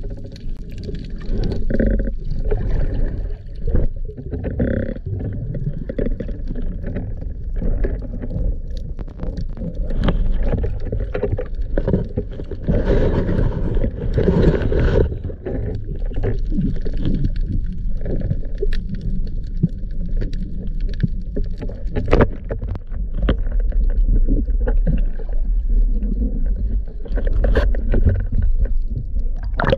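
Muffled underwater noise on a diver's camera: a constant low rumble of water moving over the camera housing, with scattered clicks and knocks, and a louder stretch of rushing, scraping noise around the middle.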